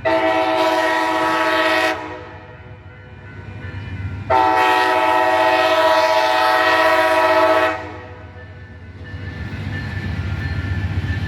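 Locomotive air horn sounding two blasts of a chord, a shorter one of about two seconds and then a longer one of about three and a half seconds, over the low rumble of the train, which grows louder near the end.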